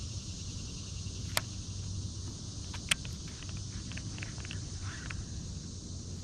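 Steady high-pitched drone of summer insects, with two sharp clicks, about a second and a half and three seconds in, and a few faint ticks after them.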